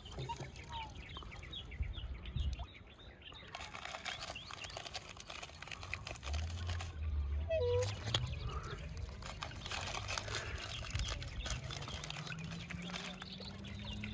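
Waterfowl calling, with a few short calls; the clearest is a pair of short falling notes about halfway through. Under them runs a steady rustle with many small clicks and a low rumble.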